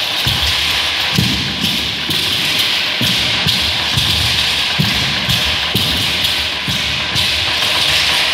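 Ayoyote seed-pod ankle rattles shaking and clattering with the dancers' steps, over a huehuetl (tall wooden Aztec drum) beaten with a stick in a steady pulse of low thuds about once a second.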